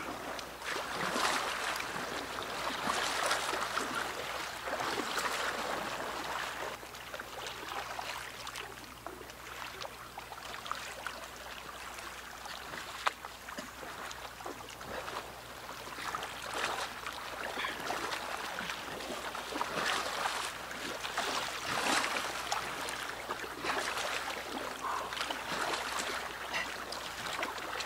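Water lapping and splashing as a fishing kayak is paddled across calm water, with rushes of noise swelling and fading every second or two.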